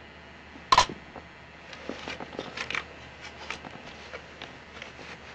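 A Lego spring-loaded missile launcher fires once with a sharp plastic snap about a second in. A string of lighter plastic clicks and rattles follows as the brick model is handled.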